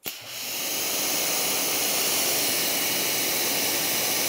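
Pressure washer spraying a 40-degree fan of water through a nozzle-guard tip: a steady, loud hissing rush that builds up over about the first second and then holds level.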